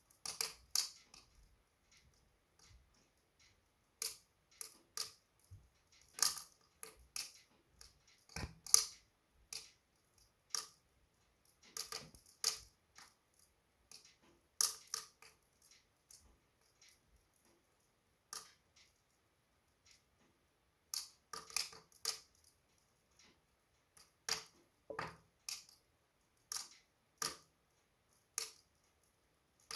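Wood fire burning in a fireplace, crackling with irregular sharp pops and snaps, sometimes in quick clusters, with quiet gaps between. The loudest snap, about eight seconds in, has a low thump under it.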